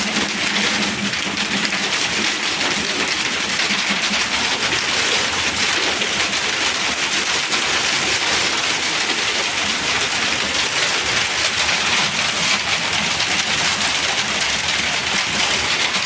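Hail falling hard: a dense, steady patter of countless small impacts.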